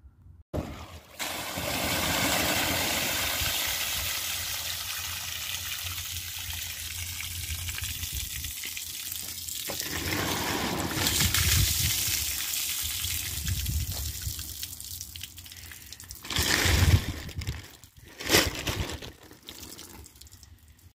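Rainwater pouring and trickling off the edge of a plastic tarp onto pavement, a steady splashing wash that swells midway, with two brief louder noises near the end.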